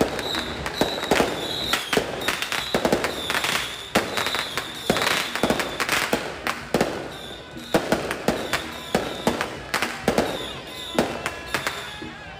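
Firecrackers going off in an irregular string of sharp bangs, some close together, some spaced out, with a high-pitched tone sounding on and off behind them.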